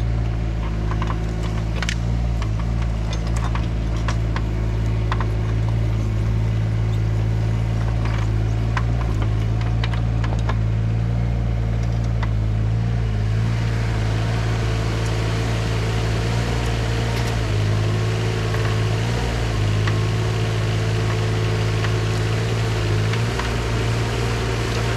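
Yanmar SV17 mini excavator's diesel engine running steadily under work, with scattered sharp knocks in the first half. About halfway through a broad hiss joins the engine sound.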